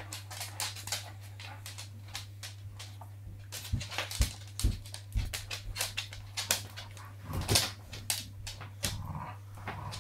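A Boxer and a Staffordshire Bull Terrier playing rope tug: several short, low dog vocal sounds about halfway through and again near the end, over frequent clicks and scuffles of the dogs moving about.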